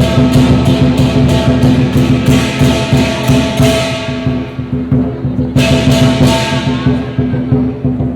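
Dragon dance percussion: a loud drum beaten in a fast steady beat with clashing cymbals. The strikes stop about four seconds in and the ringing fades, then a fresh crash comes near six seconds and rings on.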